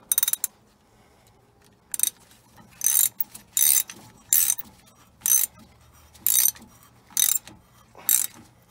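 Half-inch ratchet clicking in about nine short bursts, roughly one a second, as it is swung back between strokes while driving an M14 tap. The tap is re-cutting a cross-threaded wheel-bolt hole in a VW Golf Mk7 hub, turning in and then reversing to clear burrs.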